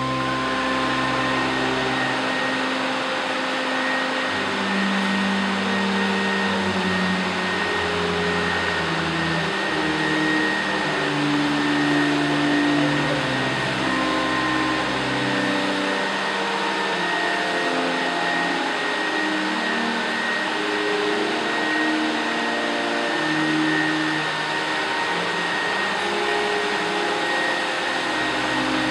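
A vacuum cleaner running with a steady whine and rush, its whine starting about half a second in, over a pipe organ playing slow held chords.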